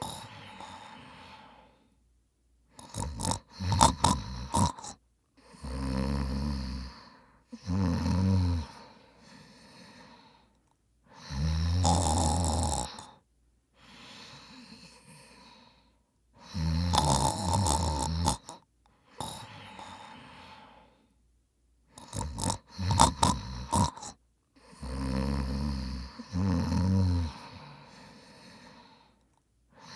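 A man snoring heavily: loud snores every two to four seconds, each with quieter breaths between them. Twice, the snoring breaks into a run of short choppy sounds.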